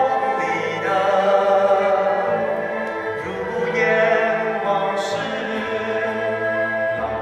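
Operatic-style singing over a live Chinese traditional orchestra of plucked lutes (pipa and ruan) and bowed strings.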